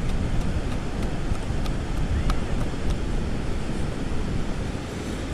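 Steady wind buffeting the microphone, with surf behind it and a couple of faint clicks.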